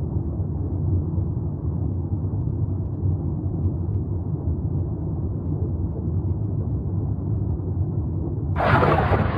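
Steady low underwater rumble, an ambience sound effect laid under a swimming-shark animation. Near the end, a louder rush of hissing noise cuts in.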